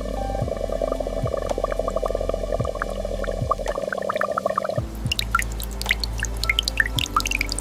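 Liquid pouring in a steady stream for nearly five seconds, then stopping abruptly, followed by quick, irregular water drips plinking.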